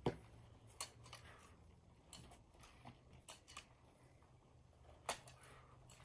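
Faint, scattered knocks and clacks of armoured fighters sparring with weapons and shields, a few sharper strikes at the start, near one second in and about five seconds in.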